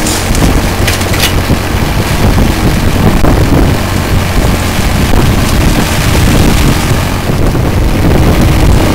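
Hitachi mini excavator's diesel engine running steadily under load with its hydraulics working, as the bucket digs through mud and water in a drain. A couple of short sharp knocks about a second in.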